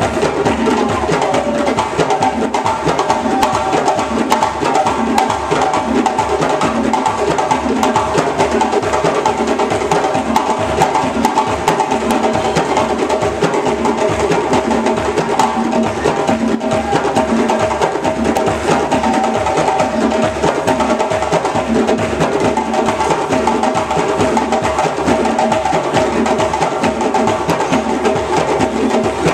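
Ensemble of djembe hand drums, with drums on stands at the back, playing a fast, dense rhythm without a break.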